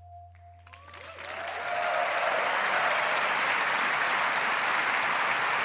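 The music fades out on a held note, then a large audience breaks into applause that builds over the first two seconds and carries on steadily.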